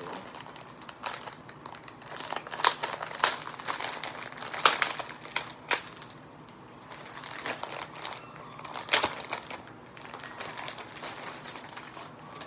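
Clear plastic hair-bundle packaging crinkling as it is handled, in irregular crackles, loudest about four and a half seconds in and again about nine seconds in.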